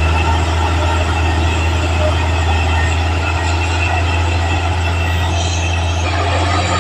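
Caterpillar D6R XL bulldozer's diesel engine running steadily, a continuous low drone.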